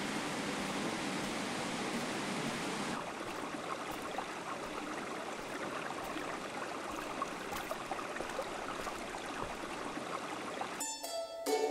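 Mountain stream rushing over rocks, a steady water noise that turns less hissy about three seconds in. Plucked-string music comes in just before the end.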